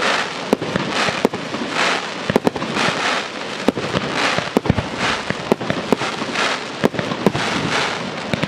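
Fireworks display: aerial shells going off in a rapid, irregular series of sharp bangs over dense crackling that swells and fades.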